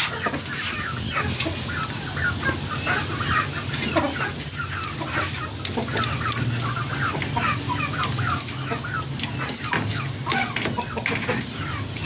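Caged chickens clucking busily and continuously, with a few sharp metallic clicks as the wire-mesh cage door's latch is worked. A steady low hum sits underneath.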